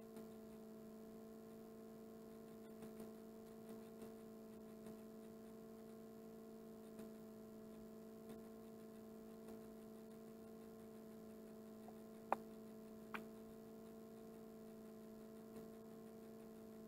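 Near silence: room tone with a steady low electrical hum, broken by a few faint ticks and two slightly louder clicks about twelve and thirteen seconds in.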